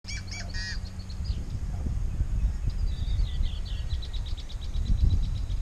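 Marsh birds chirping over a steady low rumble: a few quick chirps at the start, then a rapid, evenly spaced trill of chirps through the middle.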